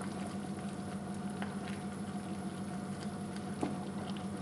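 Thick cream-and-cheese alfredo sauce simmering in a pan over a low flame, with faint scattered pops of bubbles over a steady low hum.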